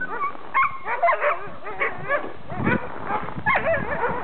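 A large pack of sled dogs barking and yelping over one another in a continuous chorus, with many high calls rising and falling in pitch.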